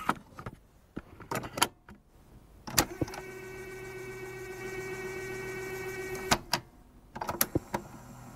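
Handling clicks and knocks, then a small electric motor whirring steadily for about three seconds, cut off by a sharp click, followed by a few more clicks.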